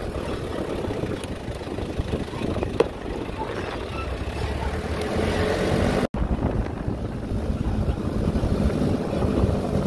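A vehicle on the move: a steady rumble of engine and road noise, cut off for an instant about six seconds in.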